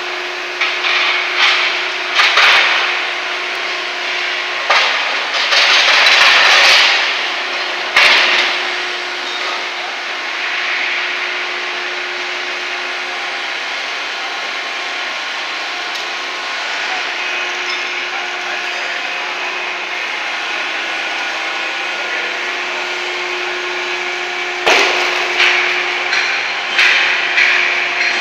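Truck wheel rim production line machinery running with a steady hum, broken by clusters of metal clanks and noisy bursts during the first eight seconds and again over the last few seconds.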